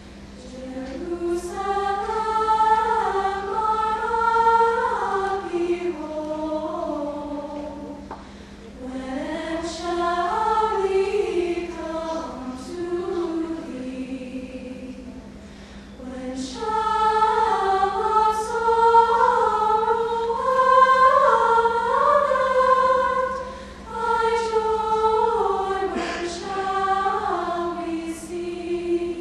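Girls' choir singing a cappella in slow, sustained phrases, with short breaths between phrases about every eight seconds.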